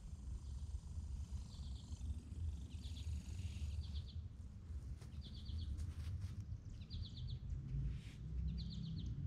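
Outdoor ambience: a small animal's short, high, pulsed chirp repeating about every second and a half, over a low steady rumble.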